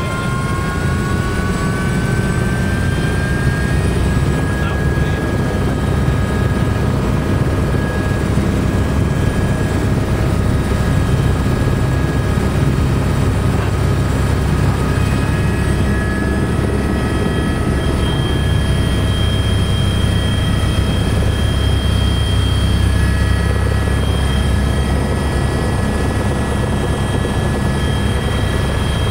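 Eurocopter AS350B3 Ecureuil heard from inside the cabin: steady heavy rotor noise with the whine of its Turbomeca Arriel turbine. The whine rises in pitch over the first few seconds and again about halfway through as power comes up for lift-off, then holds steady.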